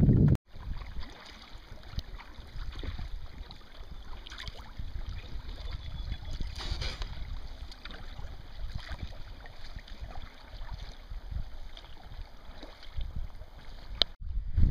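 Water splashing and gurgling around a kayak as it is paddled, with a low rumble of wind on the microphone.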